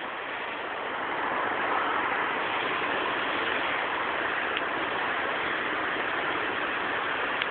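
Steady rushing noise of car traffic at a street intersection, growing a little louder over the first two seconds and then holding level.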